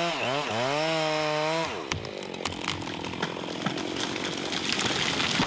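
Gasoline chainsaw running at high revs in a back cut: its pitch dips and rises once, then falls away about a second and a half in. A noisier stretch with many sharp cracks follows as the hinge wood breaks and the tree tips over.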